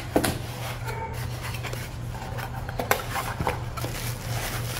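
Small cardboard box being opened by hand: flaps lifted and packaging handled, with a few short taps and rustles. A steady low hum runs underneath.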